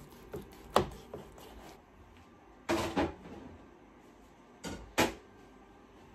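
Scattered short knocks and clatters of kitchen handling: light knocks in the first second as a chef's knife slices roast beef on a plastic cutting board, then a louder clatter about three seconds in and two sharp knocks near the end.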